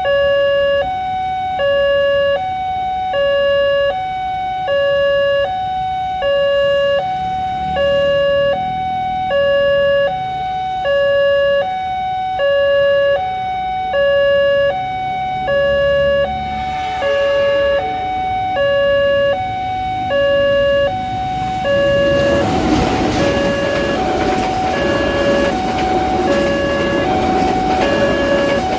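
Railway level crossing warning alarm sounding a steady two-note high-low pattern, about one cycle a second. About two-thirds of the way in, a loud train rumble and rattle rises over it as a train reaches the crossing.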